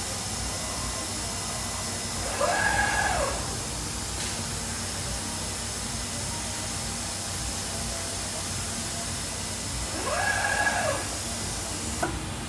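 MultiCam MG Series CNC router running with a steady hiss. Twice, about 2.5 seconds in and again about 10 seconds in, a motor whine rises and falls in pitch over about a second, the two identical in shape, as a drive motor speeds up and slows down on an axis move. A short click comes near the end.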